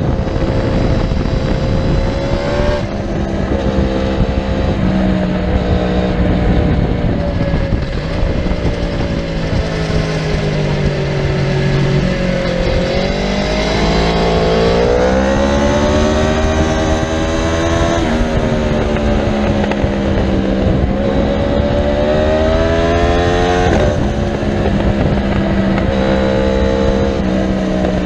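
Aprilia RSV4's V4 engine at race-track speed, its note sinking as it slows, then climbing steadily under hard acceleration, with abrupt steps in pitch at the gear changes. Steady wind rush runs under it, heard from beside the rear wheel.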